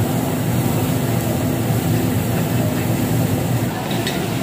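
Steady low drone of ventilation, such as the smoke-extraction fans over the barbecue grill tables, mixed with general restaurant background noise.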